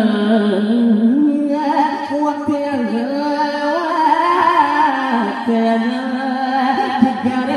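A man singing a naat (Urdu devotional song in praise of the Prophet), drawing out long held notes that slide up and down in pitch.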